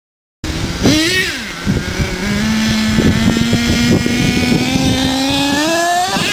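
HPI Savage 4.6 SS nitro RC monster truck's small two-stroke glow engine revving as the truck drives across grass. It starts suddenly about half a second in, rises and falls in pitch, holds a steady high drone through the middle, then climbs in pitch near the end.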